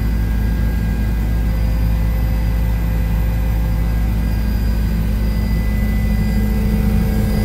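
Helicopter engine and rotors running in a steady drone, heard from inside the cabin: a strong low hum with faint steady high tones above it.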